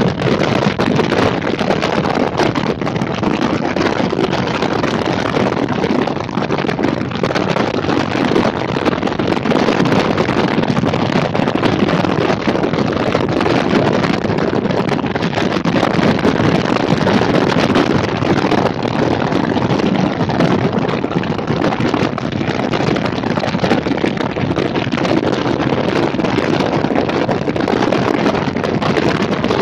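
A motorcycle at cruising speed: steady wind rushing over the microphone, with engine and road noise underneath.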